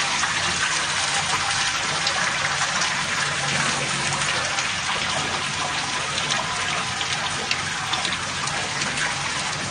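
Water leaking from a pipe in a ceiling, splashing steadily into a bucket.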